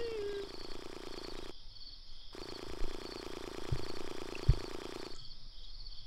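Night-time crickets chirping in a steady, evenly repeating pattern, under a low buzzing hum that drops out briefly and stops about five seconds in. Two soft low thuds come near the end.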